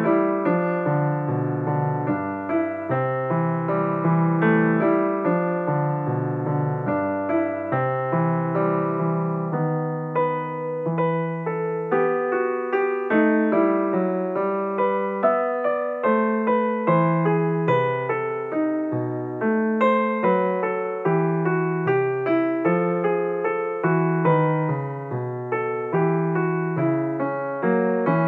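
Background piano music: a slow, gentle piano piece playing steadily, the notes distinct and evenly paced.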